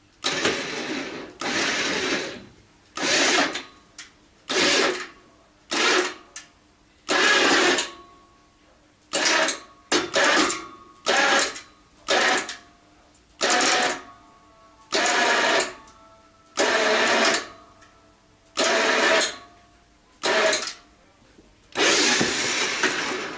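Winch hauling in through a pulley block in short bursts, roughly one every second or two, tensioning the line to load a bolt hanger in a pull test.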